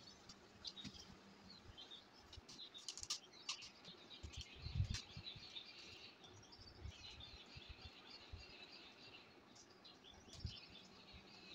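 Faint chirping of small birds in the background, with a few soft knocks from cardboard and a thin tube being handled on a tabletop.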